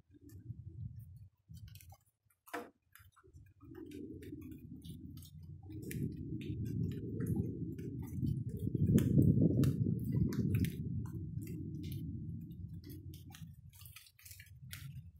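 Rain dripping, scattered sharp drip ticks, over a low rumble that swells to its loudest around the middle and then fades away.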